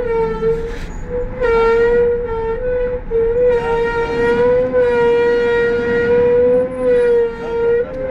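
Minibus brake pads squealing: a long, steady whistle that wavers slightly in pitch and breaks briefly a few times.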